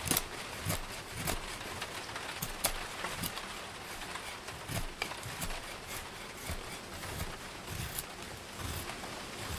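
Freshly sharpened Schrade Frontier SCHF42D knife slicing shavings off a spalted-wood spatula blank, a short crisp cut with each stroke, coming irregularly about every half second, over a steady hiss of wind and rain.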